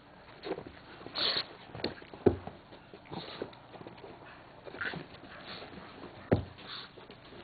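A dog snuffling and sniffing at close range in short hissy bursts, with a few sharp knocks, the loudest about two seconds in and near the end.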